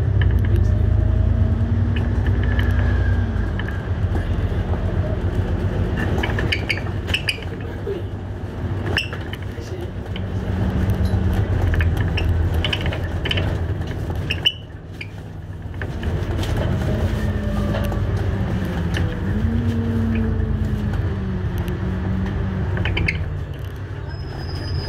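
On-board sound of an ADL Enviro400 MMC double-decker bus under way. The engine drone rises and falls in pitch as the bus accelerates and changes gear, against a constant rattle and clicking of the interior fittings. A falling whine comes in the second half as the bus slows.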